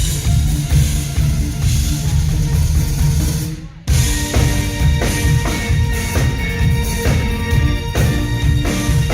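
Live band playing at a sound check: drum kit and heavy bass, with kick and snare hits. The music cuts out briefly a little under four seconds in, then comes back in with held keyboard or guitar notes over the drums.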